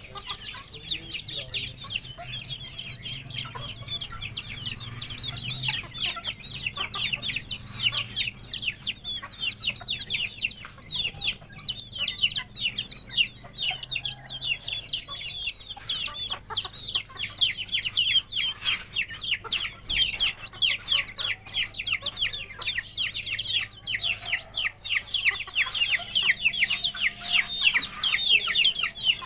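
A flock of young chicks peeping without pause: many short, high chirps, each falling in pitch, overlapping one another.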